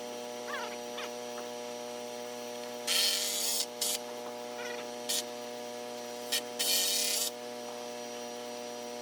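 A steady machine hum made of several constant tones, broken by short hissing bursts: two longer ones about three and seven seconds in, and three brief ones between them.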